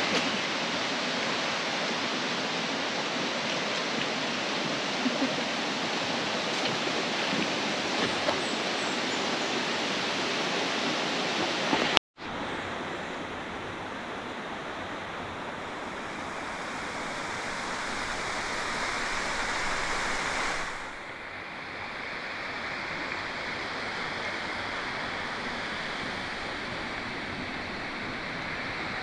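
Steady hiss of rain falling, with no distinct drops or rhythm. There is a brief break about twelve seconds in, after which the hiss goes on a little softer.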